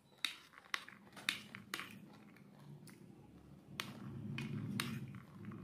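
Close-miked chewing of pomegranate arils: sharp crunching clicks about two a second, then a softer, lower chewing sound from near the middle, with a few more clicks.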